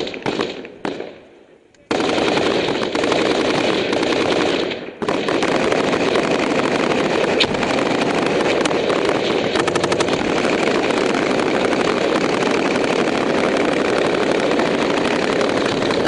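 Machine gunfire in long automatic bursts: a few separate shots at first, then near-continuous fire from about two seconds in, broken only briefly about five seconds in.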